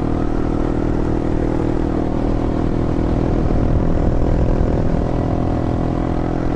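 A small single-cylinder motorcycle engine, the Honda Grom being ridden, running steadily at road speed, with wind and road noise; the engine swells slightly about halfway through.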